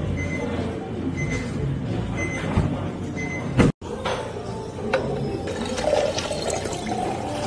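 Water pouring over ice into a tall glass, filling it for an iced Americano.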